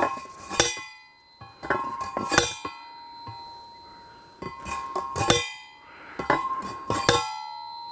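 A manual post driver (post whacker) repeatedly slamming down on a fence post, with about eight heavy strikes roughly a second apart, each leaving a metallic ring.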